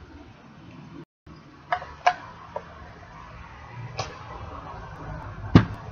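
A few short, sharp knocks and clinks from a glittered glass globe candle holder being picked up and handled on a table, the loudest just before the end. The sound cuts out briefly about a second in.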